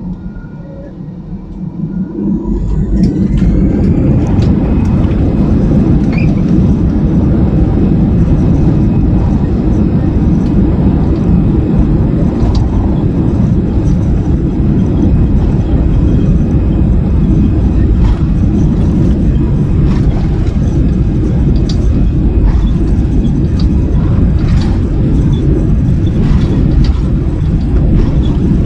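Airliner engines heard from inside the cabin, spooling up to takeoff power with a rising whine about two to four seconds in, then a steady loud rumble through the takeoff roll. Sharp rattles and knocks from the cabin come and go over the rumble.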